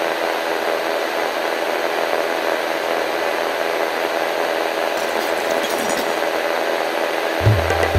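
A steady, even drone of many held tones that does not change, with low drum-like thumps starting near the end.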